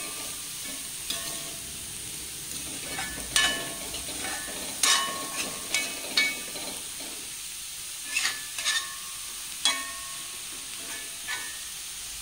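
Metal spatula stirring and scraping chopped greens stems in an aluminium kadai, giving irregular clinks against the pan, each ringing briefly, over a soft sizzle of the stems frying dry on a low flame.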